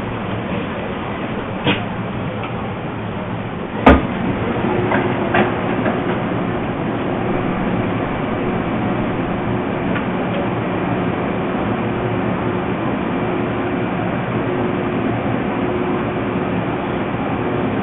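Steady background rumble and hiss picked up by an open telephone line left recording on voicemail, with a sharp click about four seconds in and a few fainter knocks just after it.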